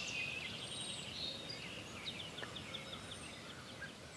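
Outdoor ambience of birds singing, with rapid trills of short high chirps over a steady background hiss, getting gradually quieter.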